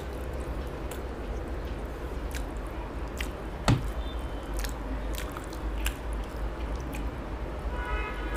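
Close-up eating sounds: wet chewing and lip smacks, with soft squishing as fingers work fish curry and rice. There is one sharp knock a little past the middle, over a steady low hum.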